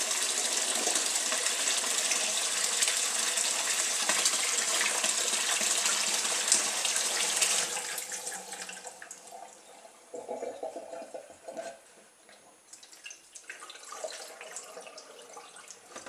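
Kitchen tap running into a brimming plastic washing-up bowl, a steady rush of water that stops suddenly about eight seconds in. After it stops there is quieter, uneven sloshing and splashing of the water in the bowl.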